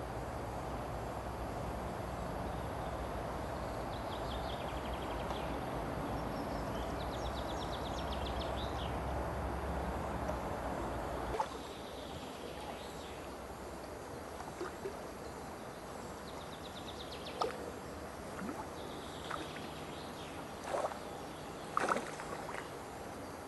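Lakeside outdoor ambience: a steady rushing noise with birds trilling faintly in the background. About halfway through, the rushing drops away abruptly, leaving quieter birdsong and a few scattered knocks.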